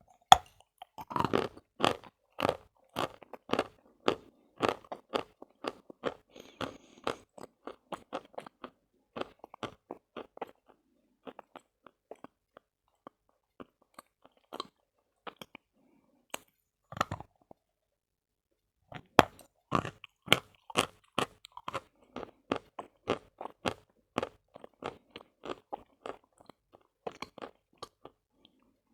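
Close-up crunching of a person biting and chewing lumps of Khrapovsky edible chalk, about two crunches a second. The crunching thins out to occasional bites partway through, then picks up again.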